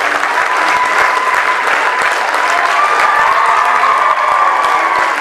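Audience applauding steadily: dense, continuous clapping from many hands, with a few wavering voices or tones faintly over it.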